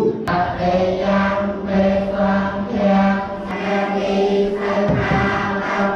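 Buddhist monks chanting together in unison on one steady reciting pitch, a continuous group recitation with a brief break about five seconds in.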